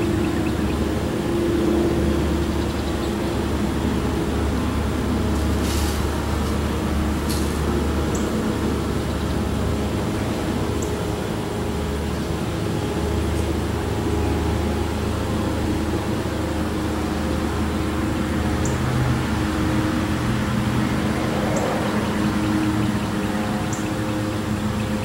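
A steady low mechanical hum made of several steady tones, with a couple of faint ticks about six and seven seconds in.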